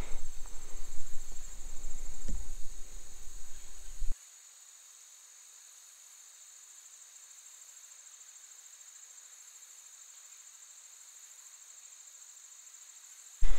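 Insects chirring in a steady, high-pitched, finely pulsing drone. For the first four seconds it is joined by rumbling outdoor noise with a small knock. Then that rumble cuts off suddenly, leaving only the faint insect chirring.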